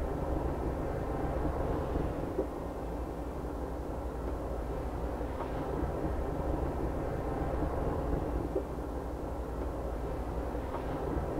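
A steady, low mechanical rumble with no single event standing out.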